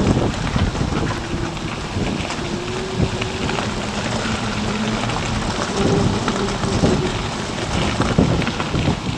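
Wind buffeting the microphone of a camera mounted on a Zero DSR electric motorcycle being ridden, a dense rumbling rush with gusty swells, with road noise and a faint steady hum.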